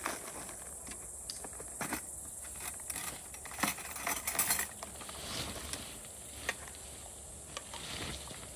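Steady high chirring of insects in the grass, with scattered clicks and light clatter as a plastic food container and a bag of pasta are handled on a camp table; the clatter and rustling get louder about four seconds in.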